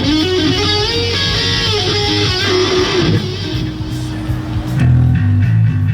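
Rock band playing live at a sound check: an electric guitar plays a lead line with bent notes over bass guitar. About five seconds in, heavier low bass notes come in.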